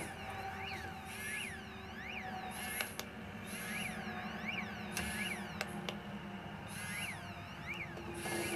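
Child water-alarm receiver sounding its water alarm on its quiet setting. A chirp rising and falling in pitch repeats steadily about twice a second, with the rattle of its vibration alarm. It is the sign that the wristband's sensor is wet.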